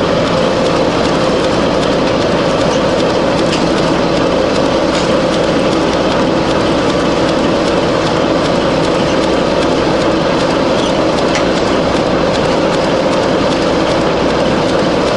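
Industrial wood chipper with a large electric drive motor running at speed, its chain infeed conveyor rattling as it carries a log toward the chipper: a steady, loud mechanical din with a constant hum and scattered light clanks. No wood is being chipped yet.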